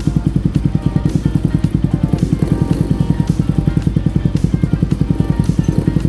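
Bajaj Pulsar (Rouser) NS200's single-cylinder engine idling steadily through an aftermarket Apido slip-on muffler, a rapid, even train of exhaust pulses. The muffler has had its added fibre packing pulled out, leaving only the old compressed fibre, to make the note louder and rounder.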